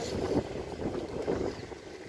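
Wind buffeting the microphone over moving water, a rough low rumble that eases off towards the end, with faint voice-like traces in the first half.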